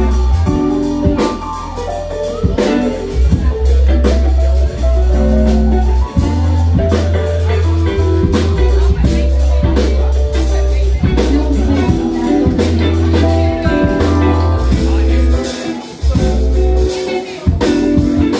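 Live band playing: drum kit, electric guitar, keyboard and heavy synth bass notes, with a couple of brief breaks near the end.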